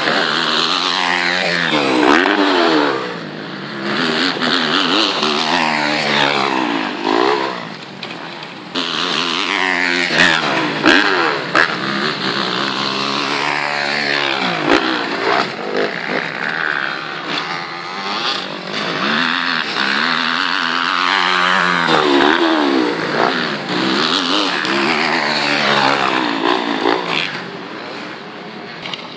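Motocross dirt bike engines revving hard and shifting, the engine notes rising and falling again and again as bikes accelerate and ease off around the track.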